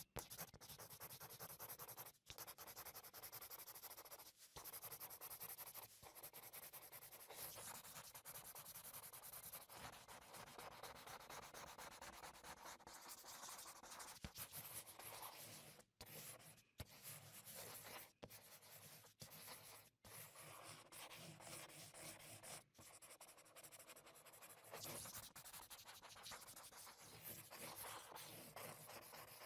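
Faint scratchy rubbing of a paintbrush stroking over paper, broken by a few brief pauses.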